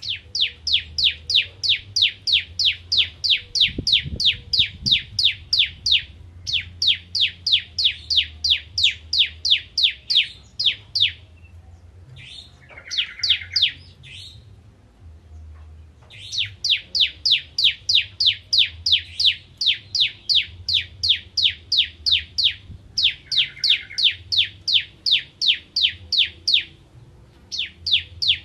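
A caged ciblek kristal (prinia) singing loudly in long runs of rapid, evenly repeated sharp notes, about four to five a second, broken by a few short pauses. This is the fast 'ngentrok' delivery of a bird in full song. Twice a buzzier, lower call cuts in among the notes.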